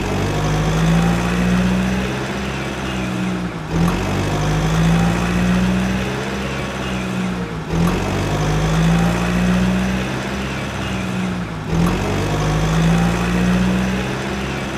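Idling heavy-vehicle engine sound effect, a steady low engine tone that repeats as a loop about every four seconds, with a short break at each restart.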